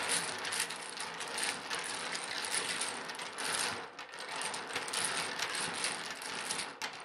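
A set of dominoes shuffled face down by hand on a wooden table, the pre-game "washing" of the tiles: a dense, continuous clatter of tiles clicking against each other and sliding on the tabletop.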